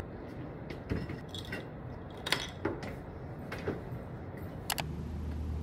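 Quiet room tone with about half a dozen light clicks and knocks spread through it: small handling sounds as a bag is moved about.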